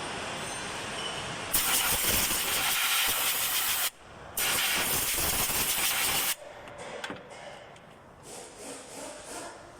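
Aerosol electrical contact cleaner sprayed in two hissing bursts, each about two seconds long with a short gap between them; faint handling sounds follow.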